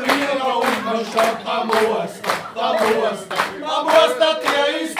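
A group of men singing a German-language comic song together, with rhythmic clapping in time, about two claps a second.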